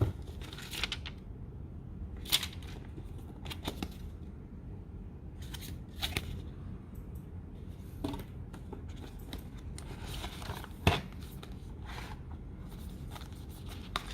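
Unpacking a smartphone's retail box: scattered clicks, taps and brief rustles of cardboard and packaged accessories being handled, at irregular intervals, the sharpest click about eleven seconds in.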